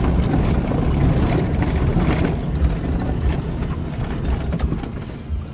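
Car cabin road noise as the car rolls slowly over a rough dirt road: a steady low rumble of engine and tyres, with small knocks and rattles, easing a little near the end.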